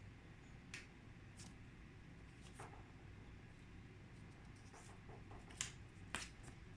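Near silence in a quiet room, broken by a handful of faint, sharp taps at irregular intervals.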